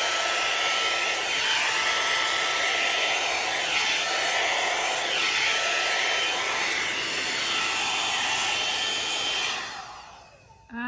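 Round-brush hair dryer (hot air brush) running on its first, cool-air setting, a steady blowing whir whose tone shifts a little as the brush is drawn through wet hair. It winds down and stops near the end as it is switched off.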